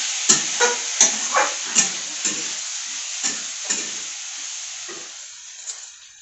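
Vegetables frying in hot oil in a pan: a steady sizzle with short scraping knocks about twice a second, fading steadily away toward the end.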